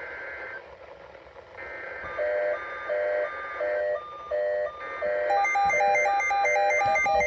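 NOAA Weather Radio emergency-alert (SAME) data-burst tones for the Required Weekly Test, with weather-radio receivers set off by the test beeping their alarms. From about two seconds in, a two-note beep repeats about one and a half times a second, and a second, different beep pattern joins about five seconds in.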